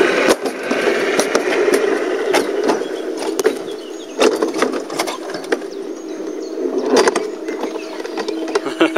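Summer bobsled rolling along its track and slowing as it brakes into the finish: a steady rolling rumble scattered with irregular clicks and knocks, growing quieter after a few seconds.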